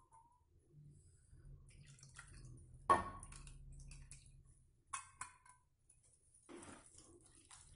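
Soft wet squishing of a hand mixing soaked poha with tamarind water in a plastic bowl, with a sharp clink about 3 s in and a lighter one about 2 s later.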